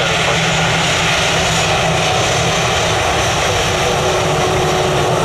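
Airliner jet engines running loud and steady, an unbroken roar with no rise or fall.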